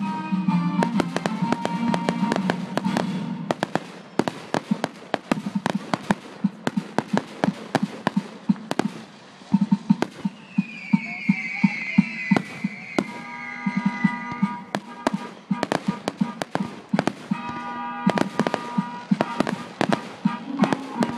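Aerial fireworks display with rapid crackling and popping bursts throughout. Around the middle comes a whistle that falls slowly in pitch over about three seconds. Music plays underneath.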